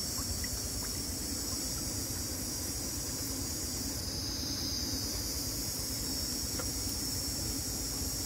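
Steady high-pitched chorus of insects droning without a break, over a low rumble, with a few faint clicks.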